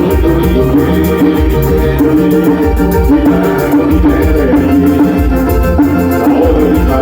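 A band playing music: sustained melody notes over drums keeping a steady beat.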